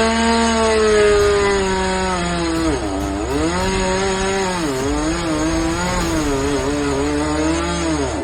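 Two-stroke chainsaw running at high revs, its pitch sagging and recovering three times as the chain is loaded in the cut.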